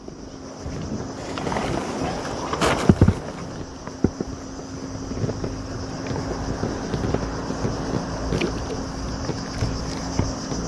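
Wind rushing over the microphone and small waves lapping against an inflatable boat's hull, with a faint steady hum underneath. A few sharp knocks about three seconds in, and small scattered clicks, come from gear being handled on board.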